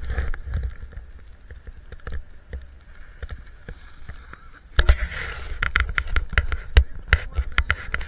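Wind buffeting the camera microphone in a blizzard: a steady low rumble with scattered clicks. About five seconds in, a gust of hiss sets in, followed by a dense run of sharp, irregular pops and clicks.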